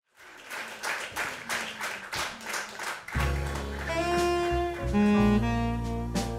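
Jazz band intro: percussion alone taps out a steady beat of about three strokes a second, then about three seconds in a double bass and a saxophone come in with sustained melody notes over the bass line.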